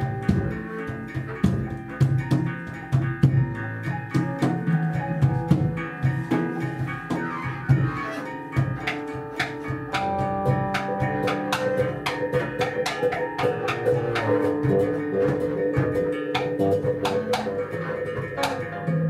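Live free improvisation by a small ensemble of double bass, electric guitar and percussion, with frequent sharp clattering hits over sustained notes. In the second half a wavering high note is held.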